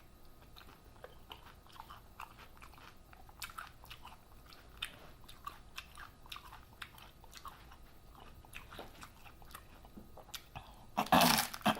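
A person chewing and biting into a taco close to the microphone: many small, soft mouth clicks, with a louder crunchy burst about eleven seconds in.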